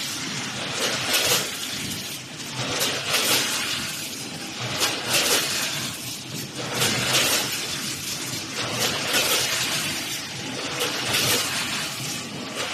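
Automatic capsule doypack packaging machine running in a repeating cycle, with a burst of clattering noise about every two seconds over a steady machine din.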